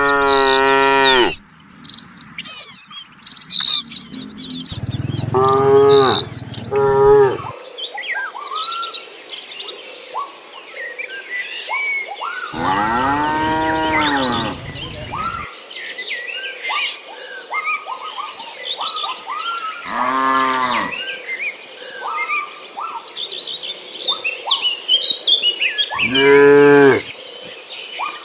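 Cattle mooing, about five calls spread out with pauses between them; the longest, in the middle, rises and then falls in pitch. Small birds chirp throughout.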